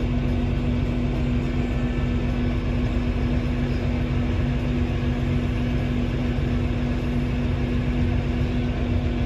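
Air Tractor crop-dusting plane's engine and propeller running steadily at taxi power, heard from inside the cockpit: a loud, even drone with one constant pitch over a deep rumble.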